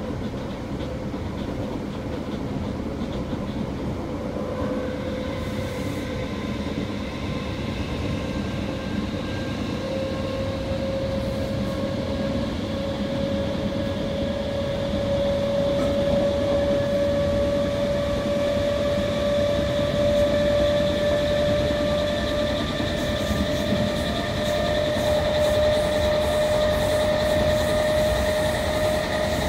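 Class 319 electric multiple unit running at speed, heard from inside the passenger saloon: steady rolling noise with a traction whine that rises slowly in pitch as the train gathers speed.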